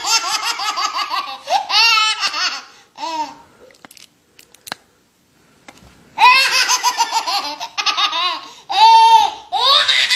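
Baby laughing in two long bouts of high, rhythmic belly laughs, with a pause of about three seconds in the middle.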